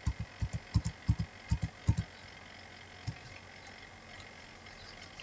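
Computer keyboard typing: a quick run of about a dozen soft keystroke thuds over the first two seconds, then one more keystroke about a second later.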